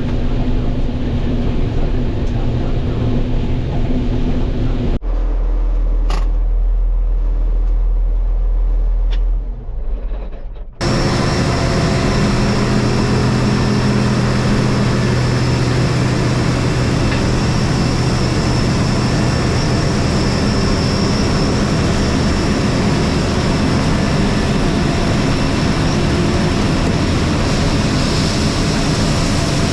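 Combine harvester running steadily in corn harvest. About five seconds in the sound cuts to a deep low rumble alone for about six seconds, then the full machine noise returns with a steady high whine.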